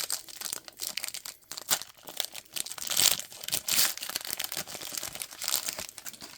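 Wrapper of a 2019 Contenders football card pack being torn open and crinkled by hand: an irregular run of crackles and rustles, loudest about three to four seconds in.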